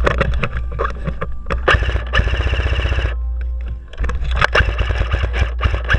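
Airsoft gun firing a rapid burst of about a second near the middle, surrounded by scattered sharp clicks and knocks, over a steady low rumble.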